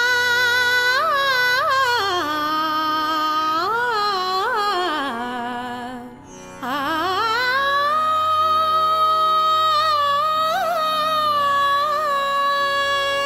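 A woman singing solo in two slow phrases, with long held, slightly wavering notes and quick ornamental turns. The second phrase starts after a short breath about six seconds in, glides up and holds one long high note.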